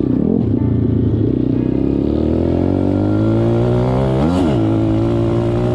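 M2R pit bike's single-cylinder four-stroke engine running under throttle as it is ridden, heard from on the bike. The revs climb gradually, then rise and fall quickly in a short blip about four seconds in before holding steady.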